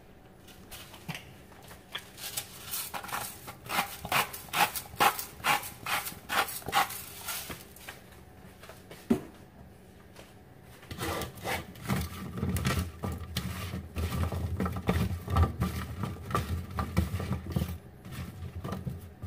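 A run of quick, sharp clicks in the first half. From about eleven seconds in, a hand tosses oiled, seasoned asparagus spears around an aluminum sheet pan, giving a steady rustling and scraping of stalks on the metal.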